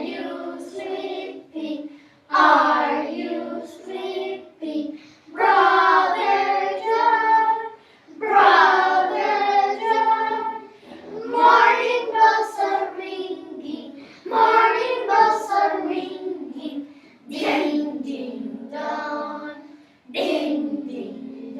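A class of young children singing a song together in short phrases with brief pauses between them.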